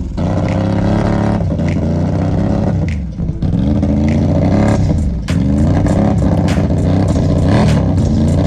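ATV engine revving hard and repeatedly, its pitch climbing and falling, under heavy load as the quad churns through deep mud and water. The revs drop off briefly about three and five seconds in, then climb again.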